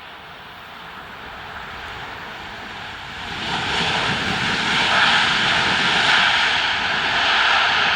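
Boeing 787-9 airliner's jet engines: a rushing noise with a faint steady whine that swells loud about three seconds in and holds.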